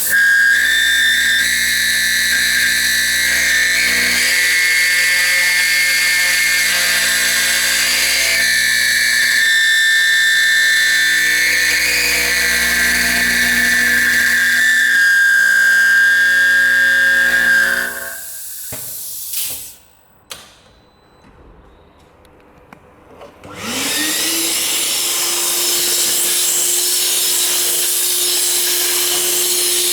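MLA A40/A45 copy router's spindle running and milling a door-lock pocket in a steel profile, a loud steady high-pitched whine. About two-thirds of the way in the spindle winds down and goes quiet, then a few seconds later it starts again with a quickly rising whine that settles into a steady run.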